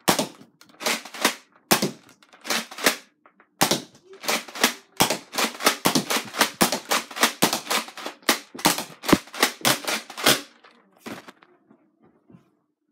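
Nerf Mega foam-dart blaster firing over and over: a long run of sharp snapping shots, a few a second and coming faster in the middle, stopping about ten seconds in.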